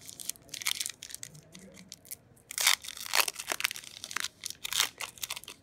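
Foil wrapper of a Pokémon Chilling Reign booster pack being torn open and crinkled by hand, an irregular run of crackling rips, loudest a little past halfway through.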